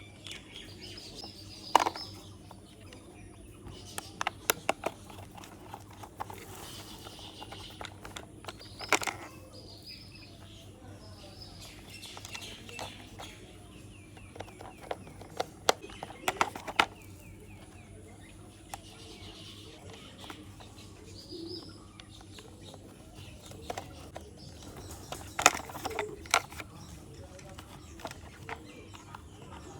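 Scattered clicks and knocks of hard plastic toy parts and a screwdriver being handled while screws are driven into a toy van's chassis, in irregular clusters. Birds chirp faintly in the background.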